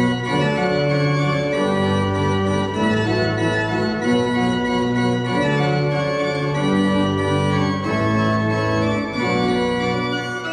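The baroque pipe organ of Święta Lipka basilica playing a piece, full held chords over a bass line that moves to a new note about once a second.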